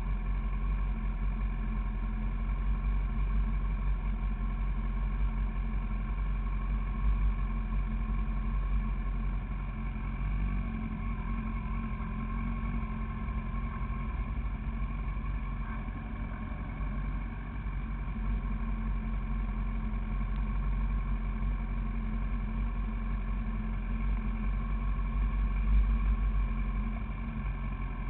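Honda CBR1000RR's inline-four engine idling steadily, heard up close.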